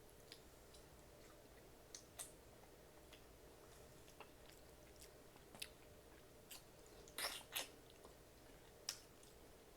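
Faint chewing and wet mouth clicks of a person eating pig feet, scattered through the quiet, with a pair of louder smacks about seven seconds in.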